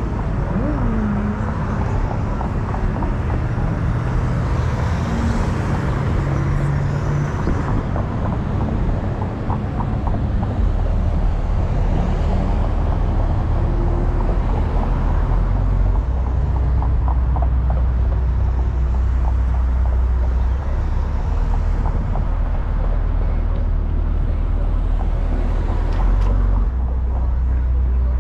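Car on the move: steady road and tyre noise with a deep rumble that grows heavier about ten seconds in.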